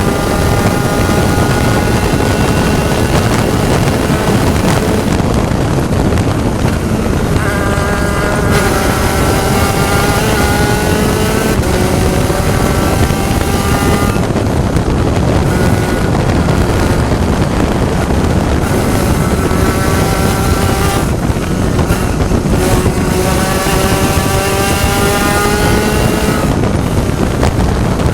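Spec Racer Ford Gen3 race car engine at racing speed. Its note climbs in pitch through the revs and breaks off several times, over a loud, steady rush of wind and road noise.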